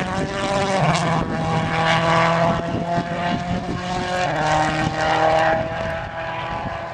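Citroën C4 WRC rally car's turbocharged four-cylinder engine at full throttle on gravel, revving up and snapping through several quick upshifts. It fades a little toward the end as the car pulls away.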